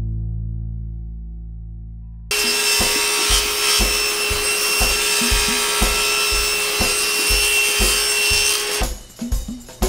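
A held music chord fades out; then, about two seconds in, a table saw starts ripping thin strips of wood. The blade runs with a steady tone over a regular drum beat, and the cutting stops abruptly near the end.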